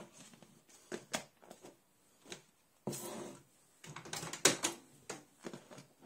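Knocks and clicks of a lidded plastic container being set into a Panasonic microwave oven and the door shut, the loudest knock about four and a half seconds in, followed by quicker clicks as the control buttons are pressed to set the cooking time.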